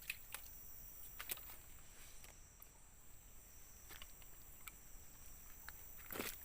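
Steady high-pitched drone of forest insects, with scattered light clicks and rustles over it.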